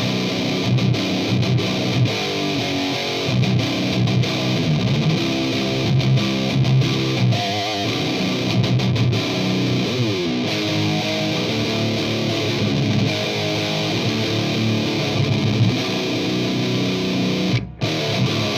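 Electric guitar through a Mesa Boogie Road King II tube amplifier on a high-gain metal distortion channel, playing heavy low riffs with a few note slides. The playing stops briefly near the end, then starts again.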